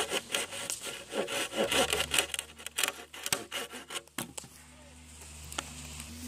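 Hand saw cutting across a wooden plank in quick back-and-forth strokes. The strokes thin out and stop about four seconds in.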